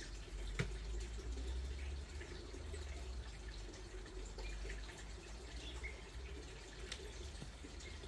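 Quiet outdoor ambience: a steady low rumble under scattered faint high chirps and ticks, with one sharp click just over half a second in.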